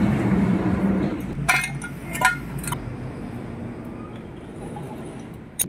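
Metal tools and parts clinking against aluminium scooter engine casings: four sharp ringing clinks between about one and a half and three seconds in, and one more click near the end. A low background hum fades out in the first second.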